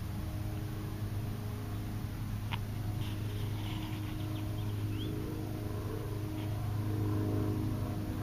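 A steady low engine hum, like a motor vehicle running nearby, with a few faint high chirps over it.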